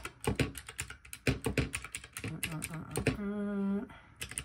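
Calculator keys being pressed in quick, uneven runs of clicks while a column of figures is added up. A short hummed "mmm" comes a little after three seconds in.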